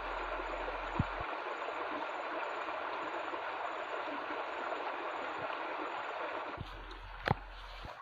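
Shallow rocky stream babbling steadily over stones and pebbles. About six and a half seconds in the water sound drops to a quieter level, and a single sharp click comes shortly after.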